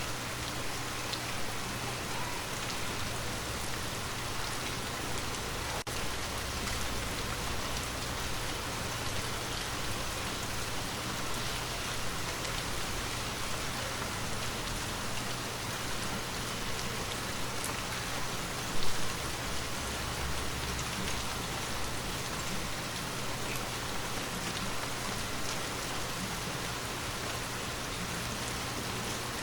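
Steady rain falling on a surface, an even hiss of many drops, with one single louder tap a little past the middle.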